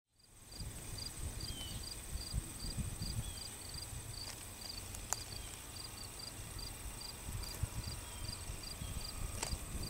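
Crickets chirping in a regular rhythm, about three short high chirps a second, over a steady high insect trill and a low rumble.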